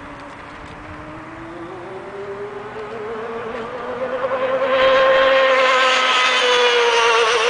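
Radio-controlled speedboat's motor running at speed on an approaching run: a high whine that climbs steadily in pitch and grows much louder, peaking about five seconds in, then drops slightly in pitch near the end as the boat passes.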